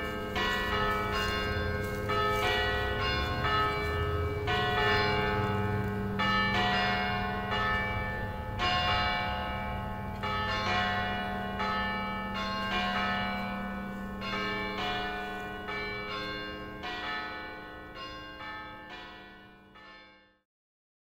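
Newly restored church tower bells pealing: several bells of different pitch struck one after another, their tones overlapping over a steady low hum. The ringing fades away and stops shortly before the end.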